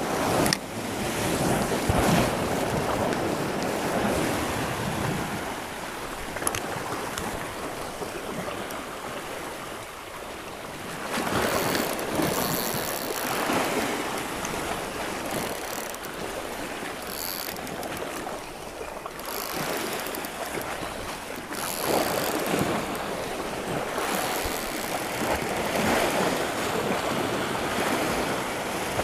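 Sea waves washing on a rocky shore, swelling and easing every few seconds, with wind buffeting the microphone.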